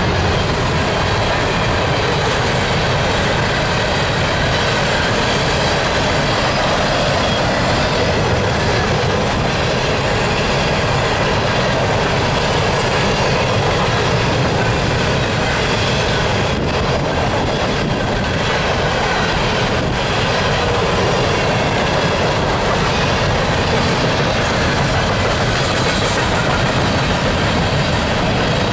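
Empty coal cars of a long freight train rolling past: a steady, loud rolling noise of steel wheels on rail.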